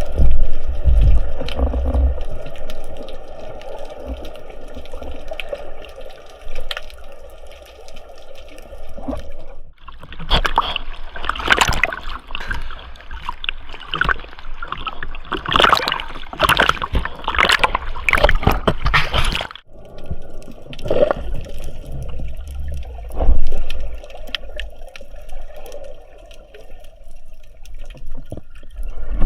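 Water moving, trickling and gurgling around the camera, with low rumbling. A louder, crackling stretch runs through the middle, and the sound breaks off abruptly at its start and end.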